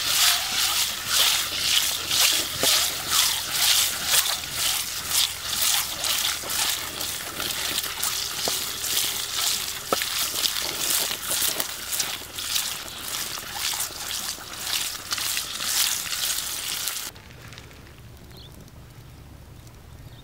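Boiled eggs frying in hot oil in a pan: a steady sizzle full of quick spattering pops. It cuts off suddenly about seventeen seconds in, leaving only a faint low background.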